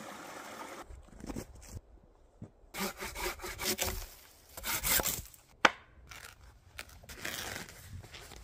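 A hand saw cutting through a small log in rasping back-and-forth strokes, followed by a single sharp knock. Near the end comes the softer grinding of a hand auger boring through a wooden disc, after a brief rush of a running stream at the start.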